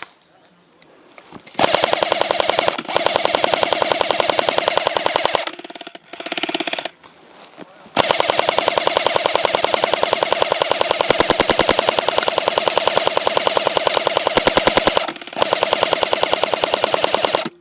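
Airsoft gun firing on full auto in three long, evenly paced bursts of rapid clicks. The longest burst runs about seven seconds. A shorter gap between bursts falls about halfway through.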